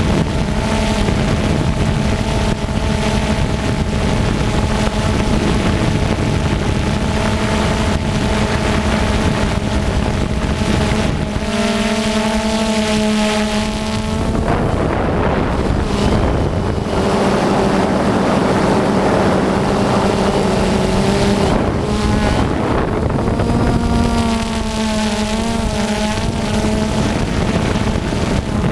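FPV quadcopter's electric motors and propellers whining steadily, the pitch shifting and wavering with throttle changes about a third of the way in and again near the end, with wind rushing over the onboard microphone.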